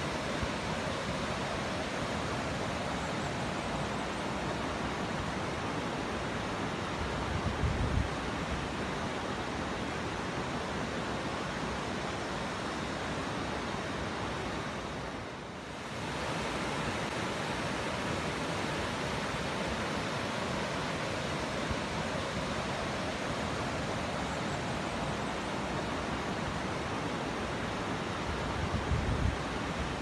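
Waterfall cascading over rock tiers: a steady rushing of water, dipping briefly about halfway through. Two short low rumbles stand out, about a quarter of the way in and near the end.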